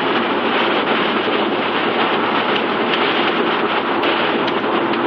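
Steady engine and road noise inside the cabin of a 1993 Mitsubishi 3000GT VR-4, its twin-turbo V6 holding an even cruise with no change in revs.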